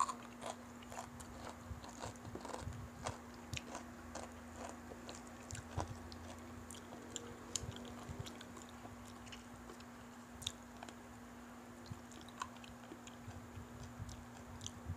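Close-miked chewing and biting of fried chicken, with irregular crunches and clicks, more of them in the first half. A faint steady hum runs underneath.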